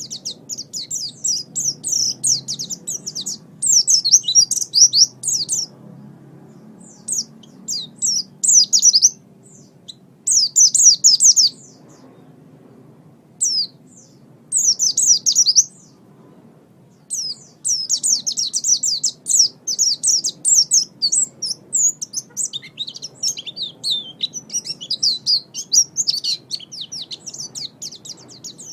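White-eye (pleci) singing: fast, high twittering phrases of quick chirps, coming in bursts with short pauses and running on unbroken through the second half.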